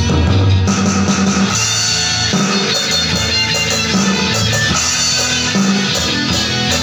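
Rock backing track with electric guitar lines over bass, with drums played along on a Hitman Mako HD17 electronic drum kit.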